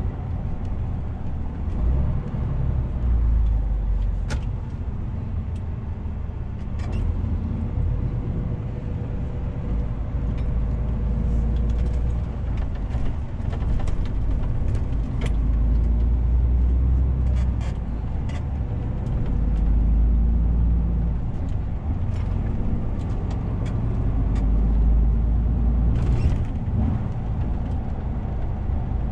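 DAF CF 450 truck's diesel engine and road noise heard from inside the cab while driving, a low drone that swells and eases several times as the truck speeds up and slows. Scattered light clicks and rattles sound over it.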